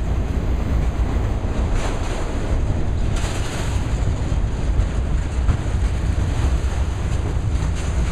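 Freight train of autorack cars rolling past: a steady rumble of steel wheels on rail, with a few brief sharper clatters.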